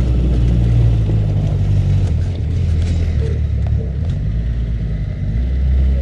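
Off-road buggy engine running, heard from on board: a steady low rumble that eases off in the middle and picks up again near the end.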